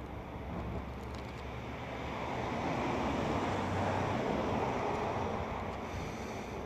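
Wind gusting over the microphone, a rushing noise that swells to a peak about halfway through and eases off again.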